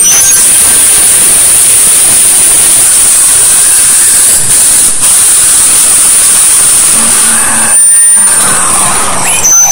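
Harsh noise music: a loud, dense wall of static hiss with a bright, piercing high band, briefly dropping out near the end.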